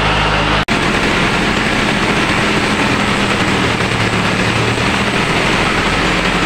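SB30 rice mill running with a loud, steady mechanical noise, broken by an abrupt cut about half a second in, after which the running noise carries on.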